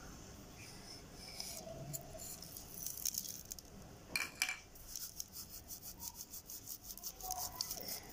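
Whole dried coriander seeds crushed between the fingers and sprinkled onto mashed potato: faint crackling and rustling with many small scattered clicks.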